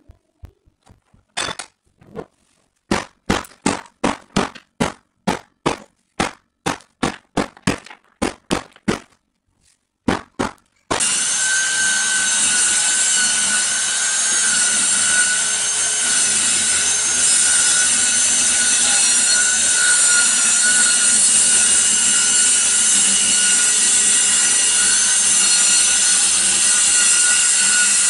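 A run of about twenty sharp knocks, two or three a second, then a corded circular saw starts about eleven seconds in and runs steadily with a whining tone, cutting into the floor.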